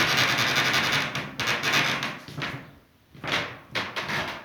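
Broom sweeping a floor: one long scraping stroke, then three shorter ones.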